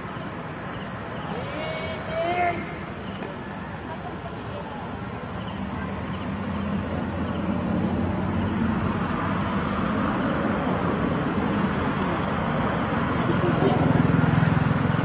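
Steady high-pitched insect chorus. A low rumble builds from about halfway and is loudest near the end, and there is a brief squeal with a rising and falling pitch about two seconds in.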